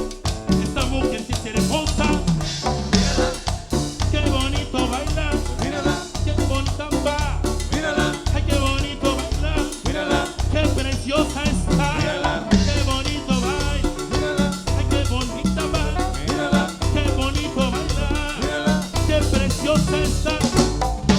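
A live band playing an upbeat Latin dance tune: a steady bass and drum-kit beat under a wavering lead melody.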